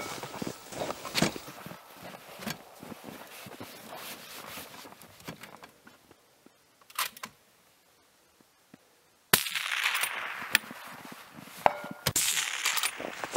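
Handling noise from gear being moved about: scattered clicks, knocks and rustling. There is a quiet stretch in the middle, then rustling and clicks start again suddenly about nine seconds in.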